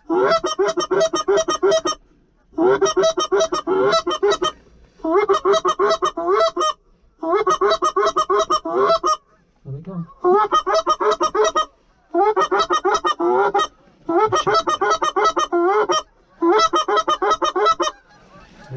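Goose call blown in a steady calling sequence: eight bursts of rapid honks, each about two seconds long, with short pauses between them.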